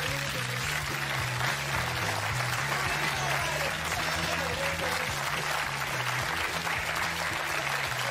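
Studio audience applauding over the show's theme music, whose bass notes step from pitch to pitch underneath the clapping.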